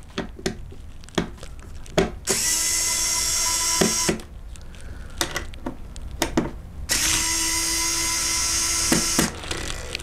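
Small electric screwdriver running in two spells of about two seconds each, backing out the screws that hold an M.2 heatsink to a motherboard. Light clicks and knocks of handling come between the spells.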